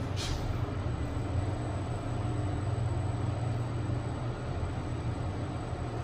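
Schindler 5000 machine-room-less traction lift car travelling down one floor at 1 m/s, giving a steady low hum. A brief hiss at the very start.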